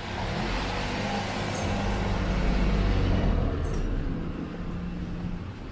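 A van passing close by from behind, its engine a low steady hum under tyre and road noise. It grows louder to a peak about three seconds in, then fades as it moves on ahead.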